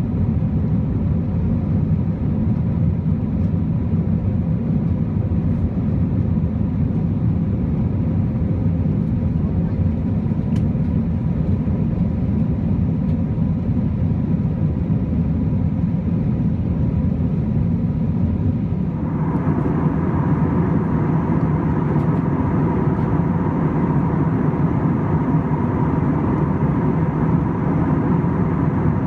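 Steady cabin noise of an Airbus A321-231 climbing after takeoff: a deep rumble from its IAE V2500 turbofan engines and the airflow, with a faint steady whine. About two-thirds of the way through, a brighter, louder hiss joins in.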